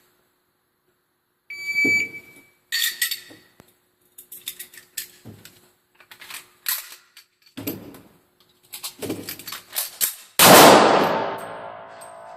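A shot timer beeps about a second and a half in. Then come about eight seconds of metal clicks and clacks as a Springfield XD pistol is reassembled from field strip and loaded with one round. The run ends in a single loud pistol shot with a long ringing decay, roughly 8.9 seconds after the beep.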